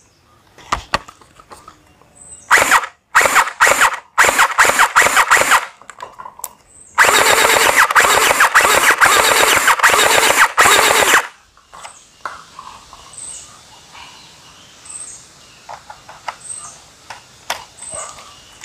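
HK416D gel blaster firing: several short bursts in the first few seconds, then one long burst of rapid shots lasting about four seconds, starting about seven seconds in.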